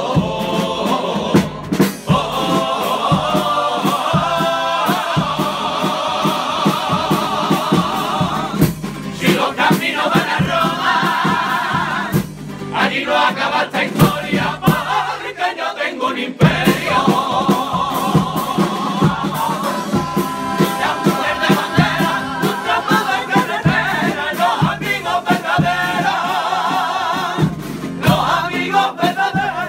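Group of men singing a Cádiz carnival comparsa song together in chorus, accompanied by acoustic guitar.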